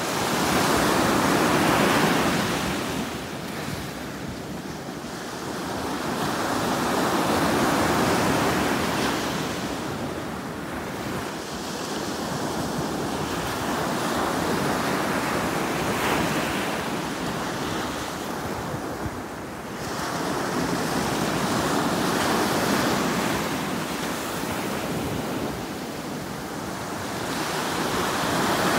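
Ocean surf: small waves breaking and washing up the shore, the rush swelling and fading about every six seconds.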